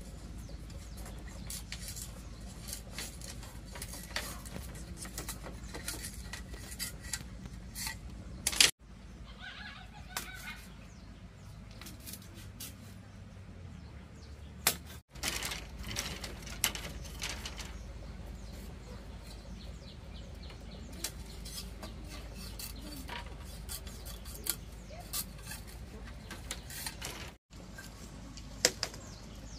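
Bamboo strips being shaved and split on a hooked knife blade: irregular scraping and sharp clicks of the blade on bamboo, over a steady low hum.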